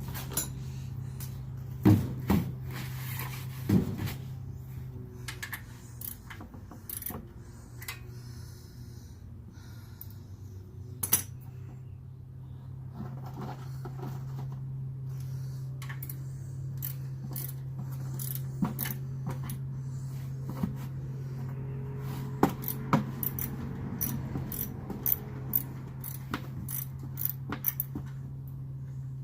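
Scattered metallic clicks and clinks of hand tools being handled, coming more often near the end, over a steady low hum.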